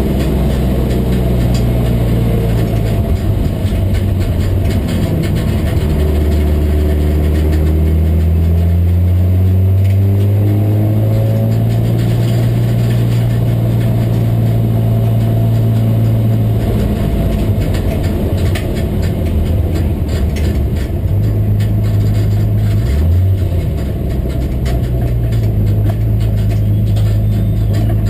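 BMW M3 race car's engine heard from inside the cockpit, cruising at low revs: the pitch rises slowly over the first dozen seconds, holds steady, and jumps briefly about two-thirds of the way through.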